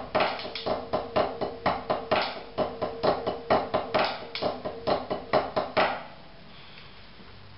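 Wooden drumsticks playing a rudimental snare-drum solo on a rubber practice pad: quick, even sixteenth-note strokes with flams and louder accented strokes, about five a second. The playing stops about six seconds in.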